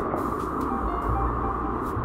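Background music, steady and even, with sustained low bass notes that change about a second in.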